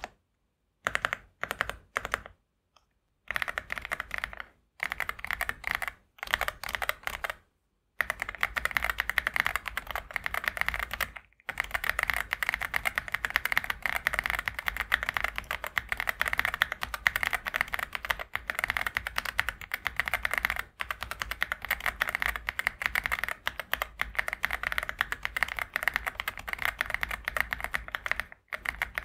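Typing on a mechanical keyboard fitted with Sidu Kada switches (POM housings, UPA stem) in a Sidu ABM066 board. A few short bursts of keystrokes with pauses give way to steady fast typing from about eight seconds in. The keystrokes sound thocky and deep.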